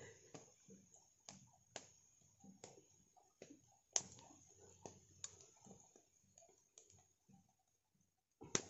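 Small wood fire crackling faintly: single sharp pops about a second apart, the sharpest about four seconds in and just before the end, over near silence.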